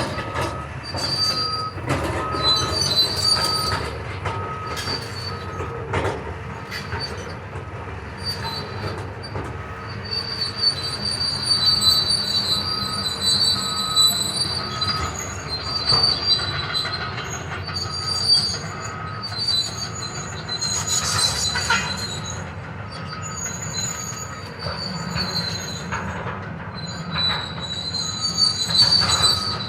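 Demolition machinery at work: high metallic squealing comes and goes, with scattered knocks and crunches. A backup alarm beeps steadily about once a second underneath.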